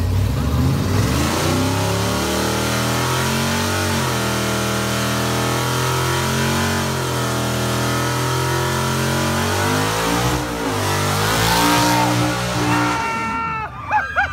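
Car engine revved up hard and held at high revs through a burnout, over a steady hiss from the spinning, smoking tyres; the revs dip briefly twice. Near the end the engine drops off and people start shouting and cheering.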